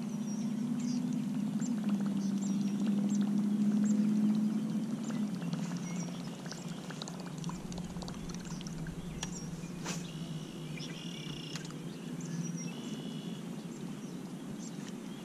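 Electric trolling motor humming steadily, its pitch stepping down a little about five seconds in. Songbirds chirp throughout, with a short bird song about ten seconds in.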